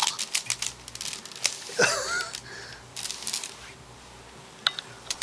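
Wicker laundry basket crackling and creaking in quick irregular clicks as a Maine Coon kitten shifts and paws inside it. A brief pitched cry, the loudest sound, about two seconds in.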